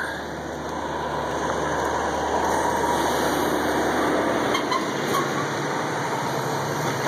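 An engine running, growing louder over the first few seconds, then holding and easing off slightly near the end.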